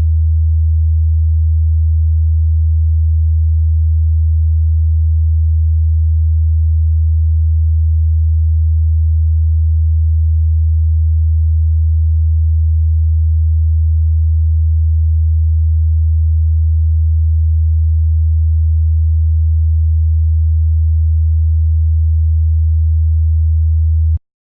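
A single low, steady, computer-synthesised sine tone, generated from a circle's outline (a circle becomes a sine wave whose period follows its perimeter). It cuts off abruptly near the end.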